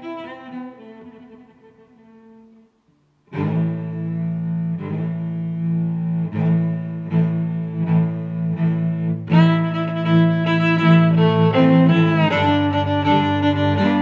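Background music on bowed strings, with a cello carrying the line. It fades out and breaks off briefly about three seconds in, then comes back louder, and higher strings join in about nine seconds in.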